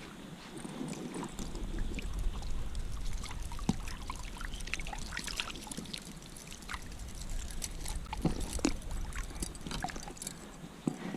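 Shallow creek water trickling and splashing, with many small irregular splashes and clicks.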